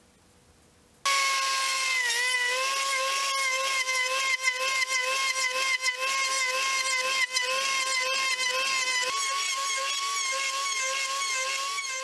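Router spindle of a homemade belt-driven CNC facing an aluminum bar dry, without cutting oil. A high whine starts suddenly about a second in, its pitch sagging and wavering as the cutter bites, with scattered sharp ticks of chips.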